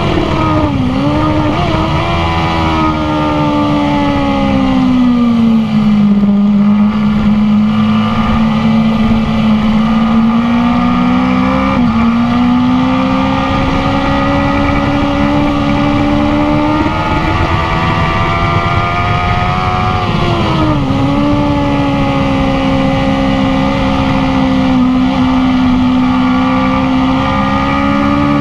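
BMW S1000RR inline-four engine running hard on track, heard onboard over wind noise. The revs drop sharply near the start as the bike slows from high speed, then hold and climb slowly through a long corner, with another brief dip and recovery about two-thirds of the way through.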